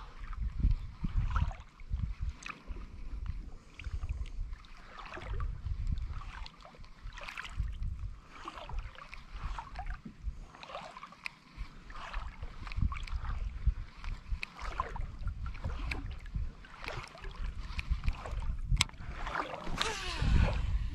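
Wind buffeting the microphone in gusts, with water sloshing and splashing around a wading angler. Near the end, a brief whirring burst as a cast is made with a baitcasting reel.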